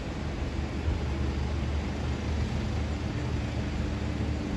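Road traffic: a steady low rumble of cars running in the street, with no distinct single event.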